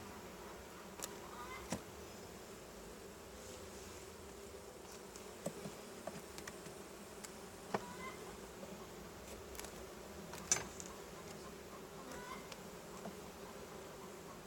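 Honey bees humming steadily around an open hive. A few light clicks and knocks come through it, the loudest about ten seconds in.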